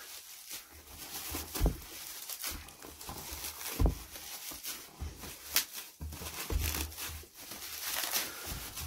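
Bubble wrap being pulled and peeled off a cardboard box by hand: irregular crinkling and rustling of plastic, with several dull knocks.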